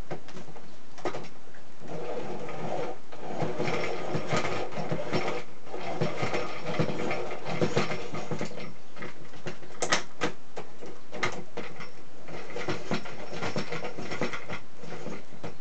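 A crank pencil sharpener being turned, its cutter grinding on a pencil with a continuous mechanical whirring broken by irregular clicks and rattles. The sharpest click comes about ten seconds in.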